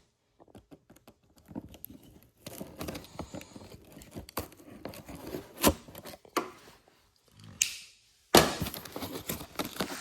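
Packaging of a boxed torque wrench being handled and torn open: scattered scrapes, rustles and clicks, then a louder stretch of ripping and rustling near the end.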